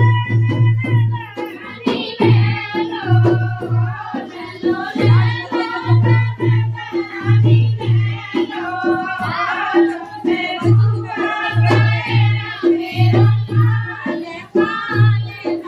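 A group of women singing a Hindi jachcha folk song, the kind sung to celebrate a childbirth, with a drum beating a steady rhythm under the voices.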